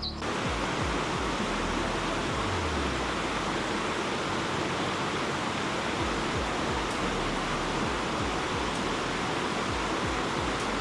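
River water rushing steadily, an even unbroken noise of flowing water.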